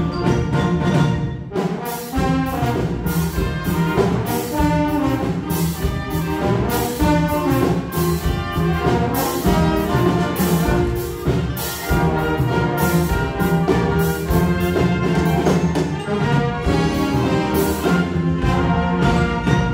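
Instrumental ensemble with prominent brass playing a medley arrangement, with percussion strikes keeping a steady beat.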